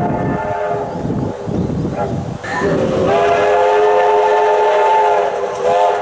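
Steam locomotive A2 986's chime whistle, several notes sounding together as one chord, over the rumble of the moving train. One blast ends about a second in, then a long blast of about three seconds follows, and a short toot comes near the end.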